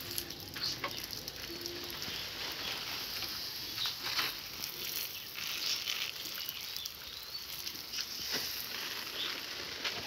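Water spraying from a garden hose nozzle onto plant leaves and the ground, a steady hiss with a few faint ticks of drops.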